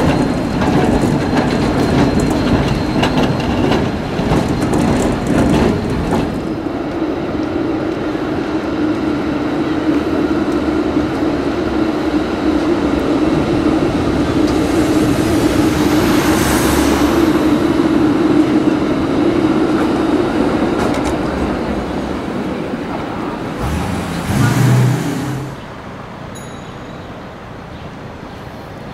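Helsinki city trams passing on street track. Wheels clatter over the rails for the first several seconds, then a steady running hum from a passing tram, and a short louder rumble a few seconds before the end, after which only quieter street noise remains.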